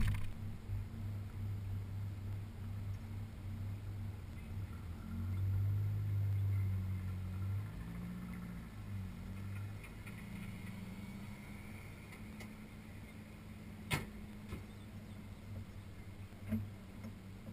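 1986 Corvette's LT4 V8 idling steadily, a little louder for a couple of seconds about five seconds in. A sharp click near the end.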